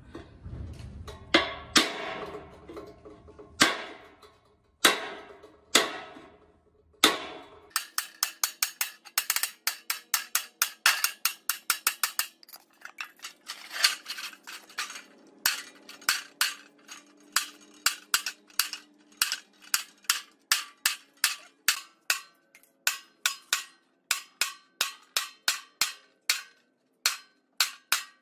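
Hammer striking a steel chisel to cut a corrugated iron sheet, the metal ringing with each blow. A few heavier blows a second or so apart at first, then, from about a third of the way in, a quick run of sharp metallic taps at about two to three a second.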